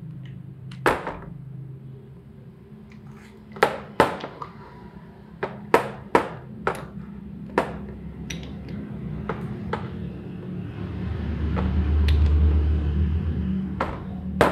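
Sharp metallic clicks and clinks, about a dozen spread unevenly, from handling a three-jaw lathe chuck: the T-handle chuck key knocking in its socket and a small brass piece set against the steel jaws. A steady low hum runs underneath, and a low rumble swells in the last few seconds.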